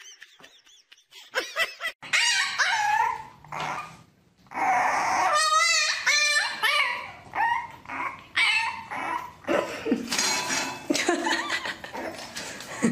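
A dog vocalizing in a string of short whines and yips that bend up and down in pitch, with a quick wavering call about five and a half seconds in.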